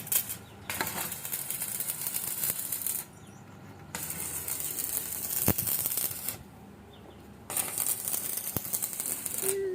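Electric arc welding crackling in three runs of two to three seconds each, with short pauses between them.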